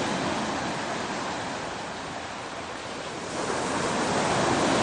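Ocean surf washing onto the beach: a steady rush of breaking water that eases off a little midway, then swells again over the last second or two.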